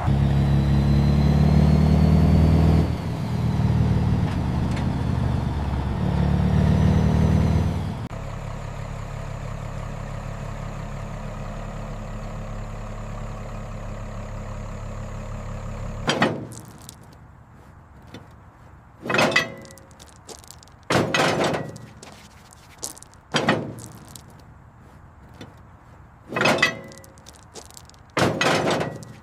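A car engine runs, revving unevenly for several seconds before settling to a steady idle, which cuts off about halfway through. Then come six short rubbing or scraping strokes, a couple of seconds apart.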